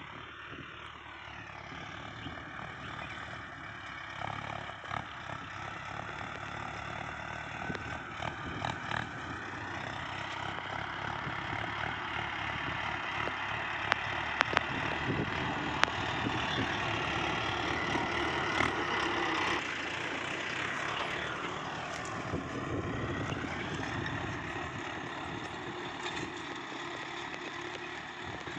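Diesel tractor engine running steadily under load while pulling a tine cultivator through dry soil. It grows louder toward the middle, and its pitch dips and recovers briefly about three-quarters of the way through.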